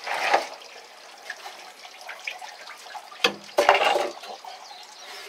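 Water splashing and sloshing in a boat's live well as a hand reaches in, in two bursts: one at the start and a louder one about three seconds in, with light trickling between.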